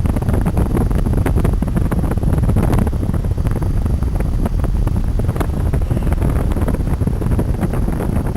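Wind buffeting the microphone during a bike ride, a loud steady low rumble broken by many small clicks and rattles.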